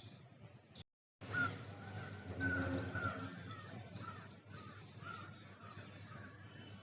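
Birds calling outdoors, many short chirps overlapping, after a brief complete dropout about a second in.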